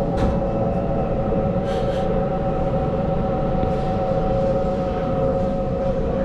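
Electric suburban train running, heard from inside the carriage: a steady low rumble of the wheels on the track with a steady whine over it. There is a sharp click just after the start and another pair about two seconds in.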